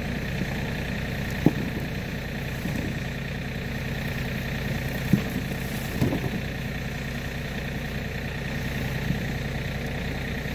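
A vehicle engine idling steadily, with a few sharp knocks as sweet potatoes are handled and dropped on the wooden truck bed.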